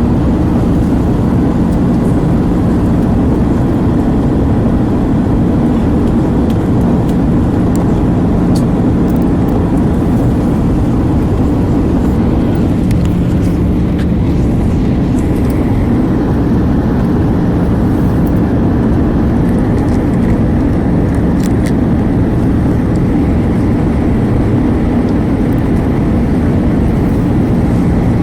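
Steady engine and airflow noise inside the cabin of an Airbus A320 airliner, a constant low rumble with a faint steady hum.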